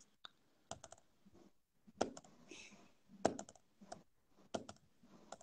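Faint, irregular clicks and taps of typing on a computer keyboard, in short clusters of a few keystrokes.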